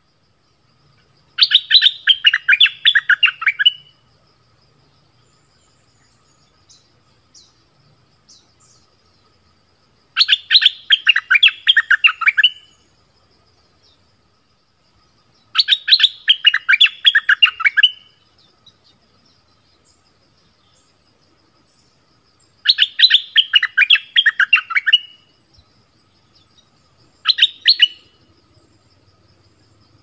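Caged decoy bulbul ('dok taeng' type) singing: five separate bouts of quick runs of notes, each falling slightly in pitch and lasting two to three seconds, the last one short, with pauses of several seconds between them.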